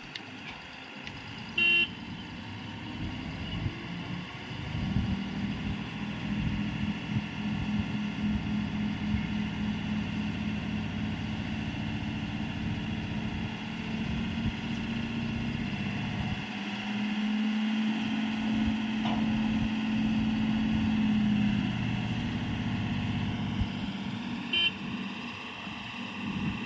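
Heavy tipper truck's diesel engine running steadily at raised revs, as when driving the hydraulic hoist to tip the load of gravel; the revs drop back about three-quarters of the way through. Two short high beeps sound, about 2 seconds in and near the end.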